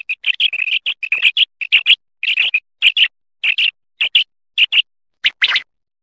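Common quail calling: a quick run of short, sharp, high calls, about two a second, with silent gaps between them.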